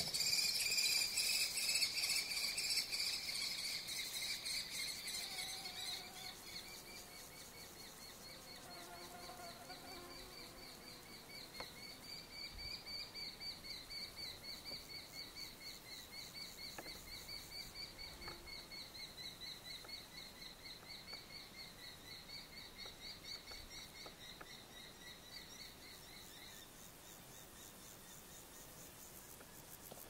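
Common kestrel giving its high, rapidly repeated kee-kee-kee call in one long unbroken series. The call is loudest for the first few seconds, goes on fainter and stops near the end.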